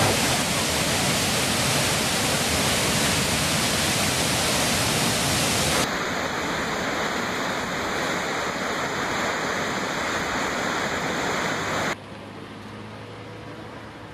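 Waterfall: heavy white water rushing steadily. It cuts off abruptly about twelve seconds in, leaving a much quieter background with a low hum.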